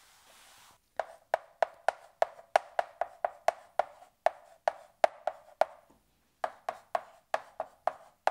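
Chalk tapping and clicking against a blackboard while characters are written, a quick irregular run of sharp taps, one per short stroke, with a brief pause shortly before the end. It is preceded by a faint rub of a board eraser at the very start.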